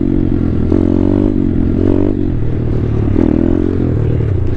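2019 Thumpstar 140cc pit bike's single-cylinder four-stroke engine running hard through a wheelie, its pitch rising and falling several times as the throttle is worked to hold the wheelie.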